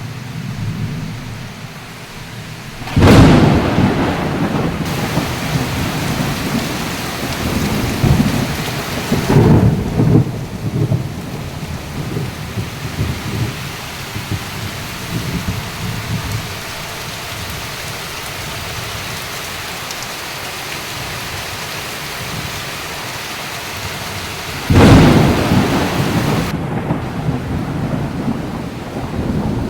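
Steady rain falling, with two sudden loud surges of low, rumbling noise, one about three seconds in and one near the end.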